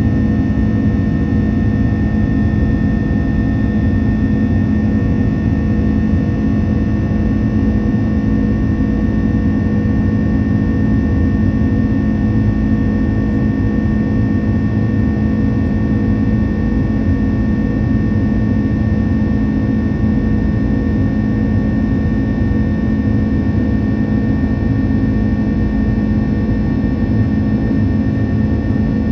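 Airbus A330-300's turbofan engines running steadily at climb thrust, heard from the cabin beside the wing: an even rushing drone with a strong low hum and a thin, steady high whine.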